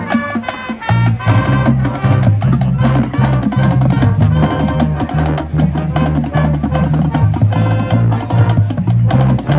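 High school marching band playing, brass over a busy drumline and front-ensemble percussion with many sharp strikes.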